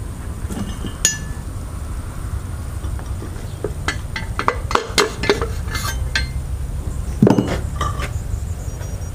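Metal engine parts clinking and tapping together as they are handled. Scattered light clinks, a quick run of them around the middle and a heavier knock about seven seconds in, over a steady low hum.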